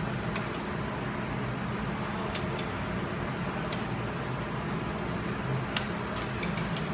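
A few sharp, light clicks and ticks of metal parts and tools being handled, several in quick succession near the end, over a steady hum.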